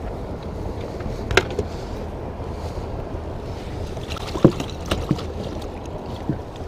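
Unhooking a small musky from a lure in a landing net: a few sharp metallic clicks and knocks from the pliers and hooks, the loudest about four and a half seconds in, over a steady low rumble.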